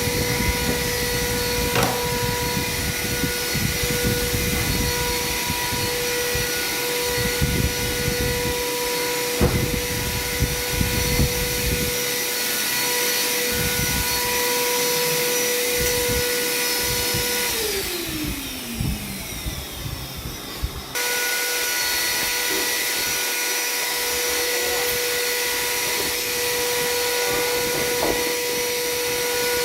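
A high-speed electric power tool motor running with a steady high whine, with irregular low knocks in the first part. About 18 seconds in, the whine falls in pitch as the motor is switched off and winds down. A few seconds later it is running again at full speed.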